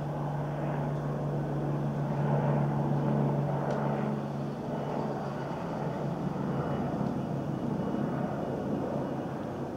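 Helicopter flying in the night sky: a continuous drone of rotor and engine. A strong steady hum dominates for the first half, then gives way to a broader rushing noise as the helicopter draws away.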